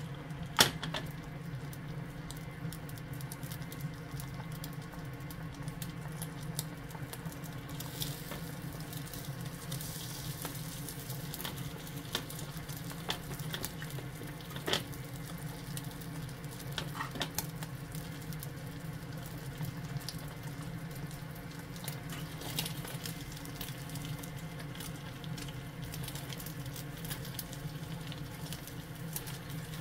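Beaten egg sizzling and crackling in a rectangular tamagoyaki pan over a gas flame, over a steady low hum. Scattered sharp taps of chopsticks against the pan, the loudest about half a second in.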